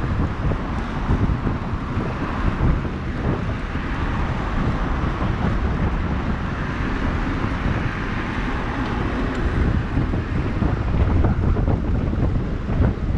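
Wind buffeting the microphone of a camera on a moving bicycle, over a steady rush of road traffic noise.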